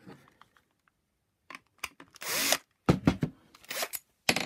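A cordless drill whirs briefly, about half a second, roughly halfway through. Around it come sharp knocks and clatter as the plastic vacuum power nozzle is handled and set down on a wooden bench.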